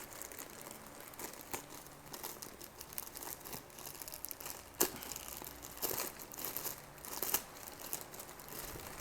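Packaging being handled and opened: irregular crinkling and crackling, with a few sharper crackles about five, six and seven seconds in.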